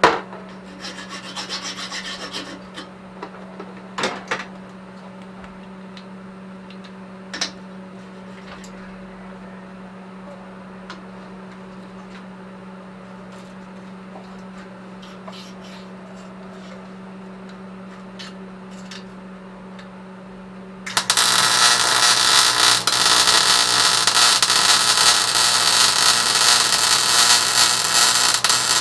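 Brief scraping of metal at the start, then a steady low hum with a few clicks. About three quarters of the way in, a loud, continuous arc-welding crackle begins as a patch plate is welded over a crack in a rusted exhaust catalytic-converter pipe.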